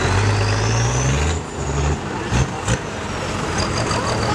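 Diesel tractor engine running, its note dropping about a second and a half in, with a high whine rising over the first second and a half. Two sharp knocks come a little past the middle.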